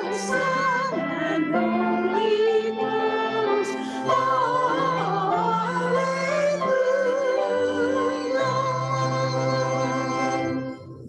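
A church congregation singing a hymn over instrumental accompaniment with long held bass notes. It ends on a long final chord, and the sound stops shortly before the end.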